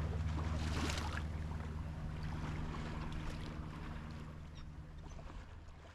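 Boat engine running steadily under a haze of wind and water noise, fading out over the last few seconds.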